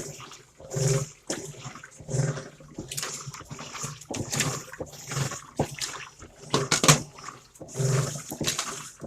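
Whirlpool top-loading washing machine running its agitation cycle, loud grinding surges about once a second with water sloshing; the owner suspects a very broken agitator, or perhaps the basket.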